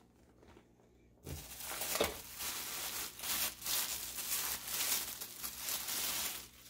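Clear plastic bag crinkling as it is handled, starting about a second in and going on as a dense, irregular crackle.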